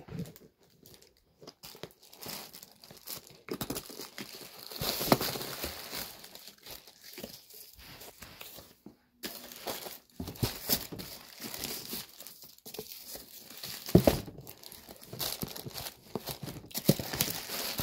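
Tissue paper wrapping crinkling and rustling in irregular spells as it is handled and pulled out of a boxed beauty case. Two sharper knocks stand out, about five seconds in and again about fourteen seconds in.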